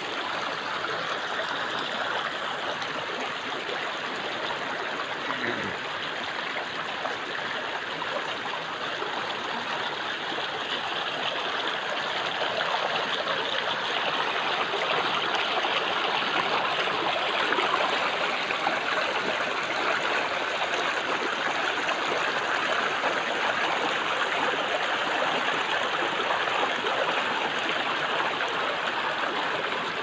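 Shallow rocky stream running and burbling over stones, a steady rush of water that grows louder about halfway through.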